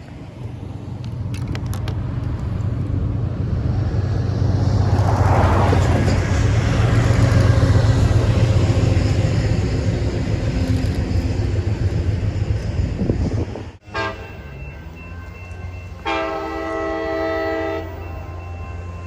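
Diesel train passing: the locomotive's engine rumble builds to a peak and then eases. After a sudden break, a multi-tone air horn sounds one blast of about two seconds.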